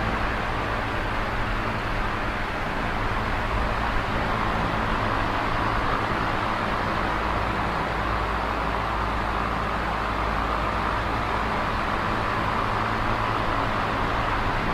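Small oscillating electric fan running: a steady rush of air with a low, constant motor hum beneath it.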